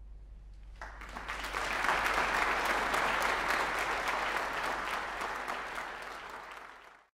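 Audience applauding. The clapping breaks out about a second in, swells, then eases and fades out just before the end.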